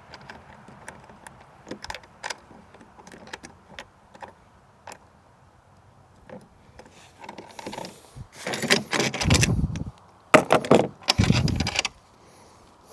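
Small plastic and metal mounting hardware being handled: scattered light clicks, then a few louder bursts of rattling and knocking with dull thumps near the end.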